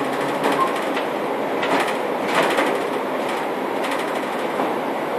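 Cabin noise inside a Škoda 14Tr17/6M trolleybus under way: a steady rumble of road and body noise, broken by a few short knocks and rattles.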